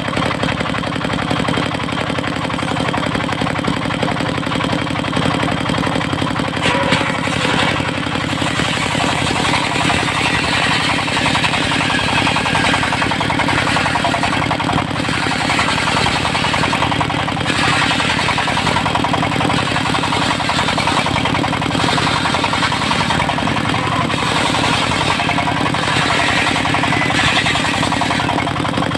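Engine-driven circular sawmill running steadily, its engine holding a low, even note while the blade rips through mahogany in several long stretches, the cutting noise rising and easing between passes.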